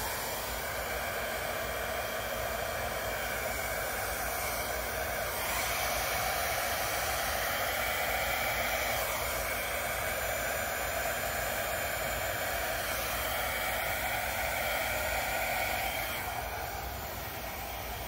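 Small travel hair dryer running steadily, blowing air over wet acrylic paint in a Dutch pour. Its whoosh gets a little louder about five seconds in and eases slightly near the end.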